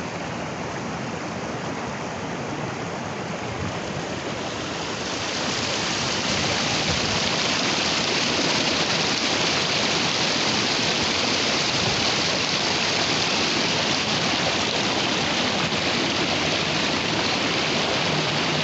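Icy river babbling and rushing over a small waterfall, a steady rush of water that grows louder about five seconds in.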